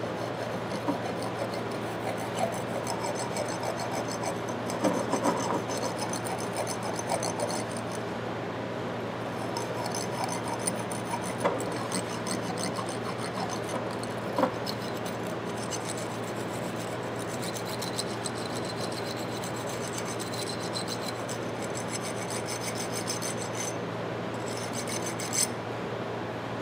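A small twisted-wire brass brush scrubbed back and forth through the slip-joint holes of a disassembled antique steel plier half. It makes a steady scratchy rasping of wire bristles on steel, with a few small clicks along the way.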